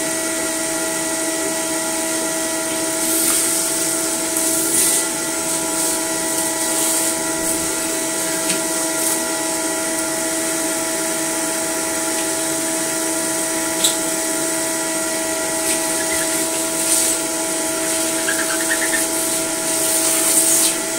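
Drum-style wet-and-dry vacuum cleaner running steadily with a constant motor whine, its nozzle cleaning out the bin and cyclone of a Dyson Small Ball vacuum. A few brief hisses and scrapes come as the crevice tool moves over the plastic.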